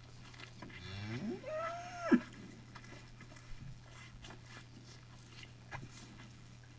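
A single cow's moo that rises in pitch, holds and cuts off abruptly, followed by a few faint clicks.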